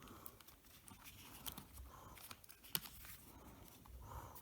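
Faint small clicks and light handling noises from hands working inside an open laptop, with one sharper click about two-thirds of the way through.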